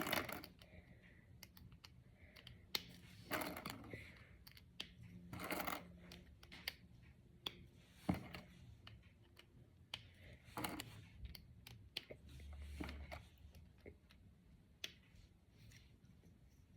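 Small plastic interlocking discs (Brain Flakes) clicking and rattling as they are handled and pushed together, with irregular light clicks and several short clattering bursts.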